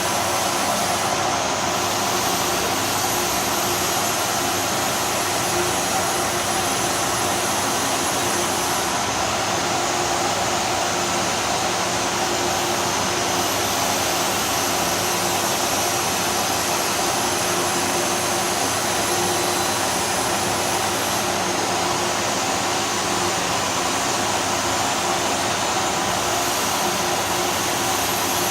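Machinery running steadily: a continuous hiss and hum with several fixed tones, and a faint high whine that comes and goes.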